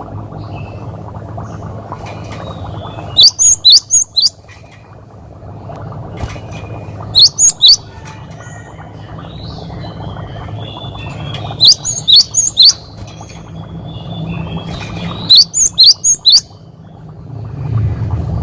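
Gelatik batu (cinereous tit) singing in short bursts of three to five sharp, high whistled notes, four bursts about four seconds apart, over a steady low hum.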